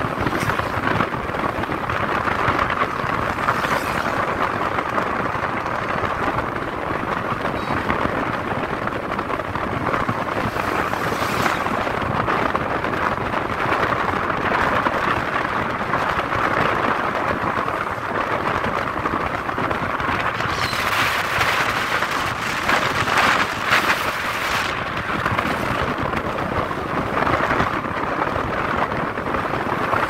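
Steady road and wind noise heard from a moving vehicle, with rushes of hiss a few times and a longer stretch from about twenty to twenty-five seconds in.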